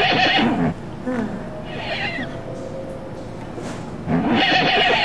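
Horse whinnying three times: a loud whinny dying away in the first second, a fainter one around two seconds in, and another loud one from about four seconds in.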